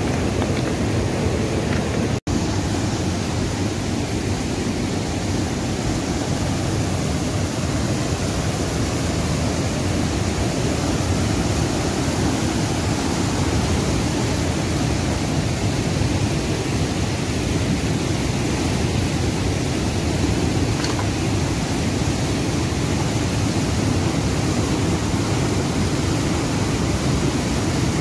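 Steady rushing of a fast mountain river pouring over rocks in whitewater rapids. It drops out for an instant about two seconds in.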